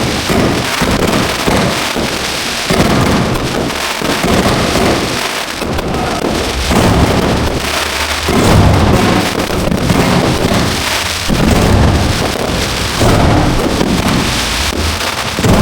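Aerial fireworks display heard close to the launch site: continuous dense crackling, with deep booms starting every one to three seconds.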